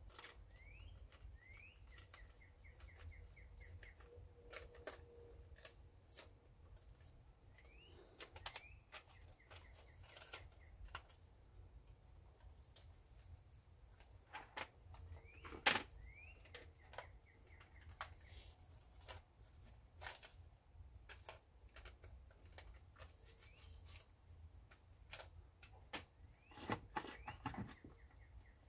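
Faint bird chirps, short rising notes and quick trills, recurring every few seconds over a low steady hum. Scattered small clicks and taps of hand work sound alongside, the sharpest about halfway through.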